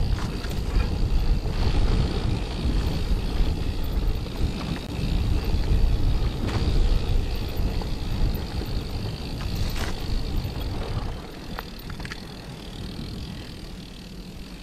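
Mountain bike riding fast down a dirt trail: wind buffeting the camera's microphone over the rumble of tyres on the ground and the bike rattling, with a few sharp knocks from bumps. It gets quieter about eleven seconds in.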